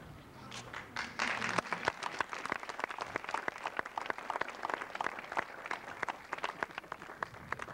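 Audience applauding. Dense clapping starts about half a second in and thins out near the end.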